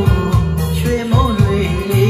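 A song with a singing voice over heavy bass, played back through an Aurex SB-510 stereo amplifier and a pair of three-way loudspeakers.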